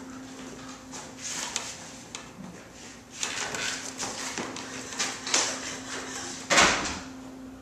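Footsteps in flip-flops on a stage floor as someone gets up from a wooden folding chair and walks, with scattered scuffs and knocks, then one loud thump near the end. A steady low hum runs underneath.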